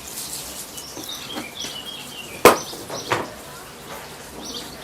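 A bird chirping, with a sharp knock about two and a half seconds in and a fainter one just after.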